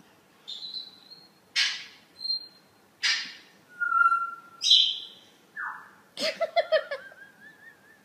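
Amazon parrot calling: clear whistles broken by several short, harsh squawks, then a quick run of chirps and a wavering whistle near the end.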